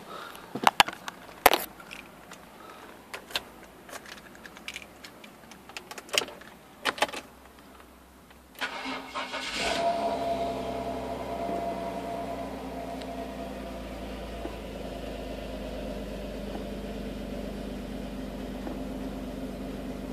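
Scattered clicks and knocks for the first eight seconds or so, then a Renault Espace V6 engine cranking on the starter for about a second, catching with a brief flare in revs and settling into a steady cold idle. Heard from inside the cabin.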